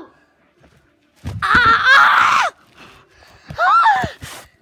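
A boy's loud scream lasting about a second, followed about a second later by a shorter cry that rises and falls in pitch.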